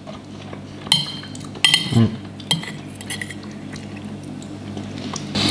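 A metal fork clinking and scraping against a ceramic plate while scooping up baked beans. There are a few sharp ringing clinks between about one and two and a half seconds in, then only quiet room sound.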